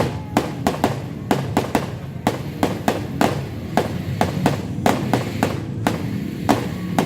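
Fireworks going off in quick, irregular succession: a string of sharp bangs and crackling pops, about three or four a second, over a steady low background rumble.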